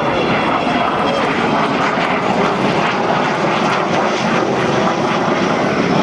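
Avro Vulcan bomber's four Rolls-Royce Olympus turbojets in flight: steady, loud jet noise.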